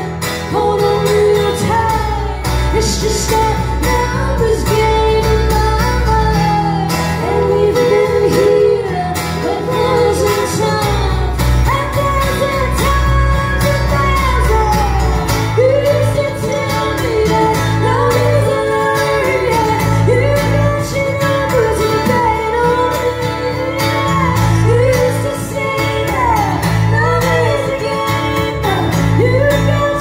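Live band music: a woman singing lead over acoustic and electric guitars, with low bass notes underneath.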